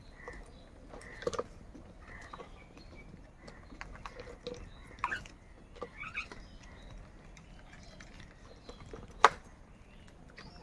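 Crows feeding: irregular sharp taps and clicks, with faint short bird calls in between and one loud sharp click about nine seconds in.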